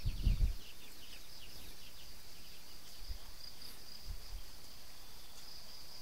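Steady high-pitched insect drone, with a quick run of chirps in the first couple of seconds, over a faint even hiss; a few soft low thumps of footsteps on the dirt path.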